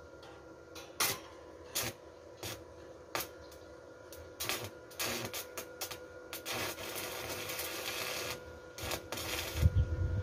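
Stick arc welding on a steel pipe with a small inverter welder: the arc is struck in four short crackles about a second apart, then burns in longer sputtering crackles of one to two seconds. A low rumble and a sharp knock come near the end.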